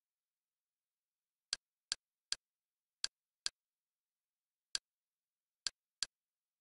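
Kodi menu navigation sounds: eight short, sharp, identical clicks at uneven spacing as the menu list is stepped through, with dead silence between them.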